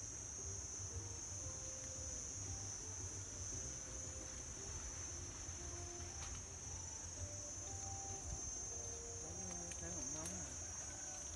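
A steady, high-pitched chorus of insects, crickets or cicadas, shrilling without a break, over a faint low rumble.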